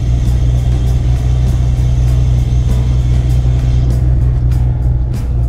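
V-tail Bonanza's air-cooled flat-six piston engine and propeller droning steadily inside the cockpit during the landing rollout.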